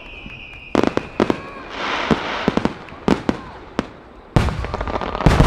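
Aerial firework shells bursting in a quick star-mine barrage: a series of sharp bangs a fraction of a second to a second apart, the heaviest two near the end.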